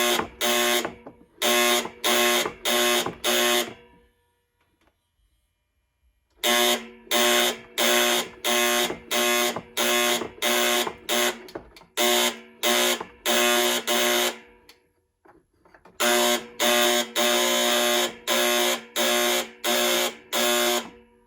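Tip-over safety buzzer of a Presto HeatDish Plus space heater, sounded by lifting the heater. It gives short, harsh, pitched buzzes about two a second, in groups, mimicking a fire alarm's 4-4 code, with two pauses of a couple of seconds.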